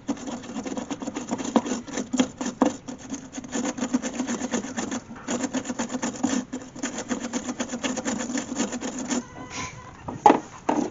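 Wire brush scrubbing quickly back and forth on a headlight wiring plug, cleaning its contacts to cure a bad connection that leaves the headlight dim. The scrubbing stops about nine seconds in, followed by a couple of sharp clicks near the end.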